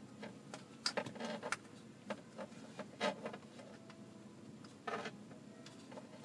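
Plastic dash trim bezel of a Ford F-150 being handled and worked into place, with a few scattered light clicks and knocks of plastic.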